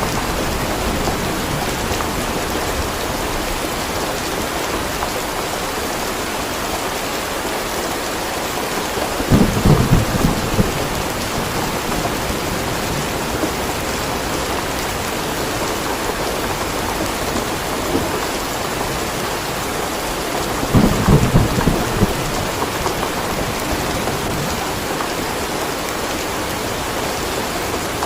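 Steady rain with thunder: the rain's even hiss runs throughout, and two short low rumbles of thunder swell up, about nine seconds in and again about twenty-one seconds in.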